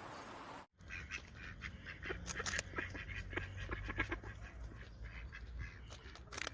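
A series of short animal calls in quick succession over a low rumble, starting after a brief cut from steady hiss.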